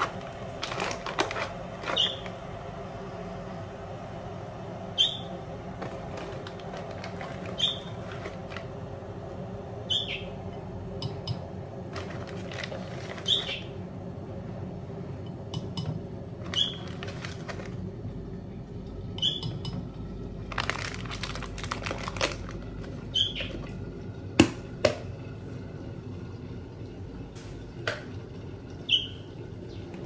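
A fledgling bird gives a short, high chirp about every two to three seconds, a begging call for food. Between the chirps come clinks and clatter of dishes and utensils, over a steady low hum.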